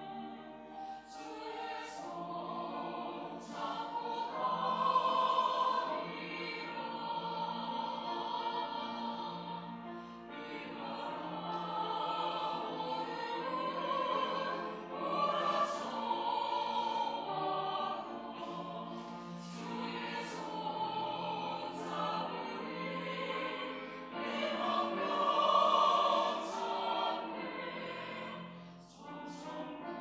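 Mixed-voice church choir of women and men singing a sacred anthem in harmony, with sustained phrases. The singing swells louder about five seconds in and again near the end.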